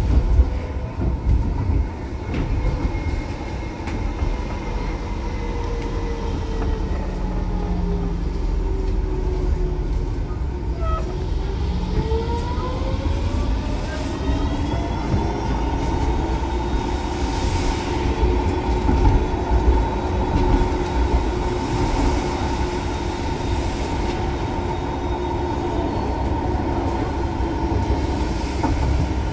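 Interior sound of a Frankfurt R-type low-floor tram in motion: a steady rumble of wheels on rails under a constant tone. The traction motor whine sinks in pitch as the tram slows, then climbs again about eleven seconds in as it picks up speed.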